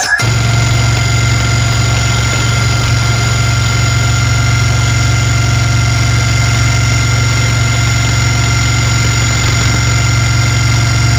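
A loud, steady electronic bass drone played through a large loudspeaker sound system as a sound-check tone, held unchanged for about eleven seconds with a few faint higher steady tones over it. It starts and cuts off abruptly, between passages of dubstep-style electronic music.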